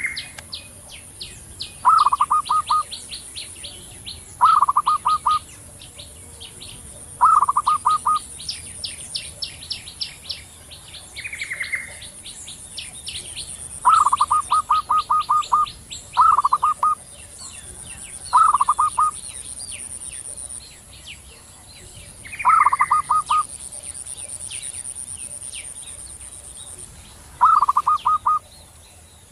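Zebra doves (perkutut), male and female answering each other with staccato coos: about eight short bursts of rapid repeated notes, a few seconds apart. A few higher falling notes, fainter high trills from other birds and a steady high buzz run behind.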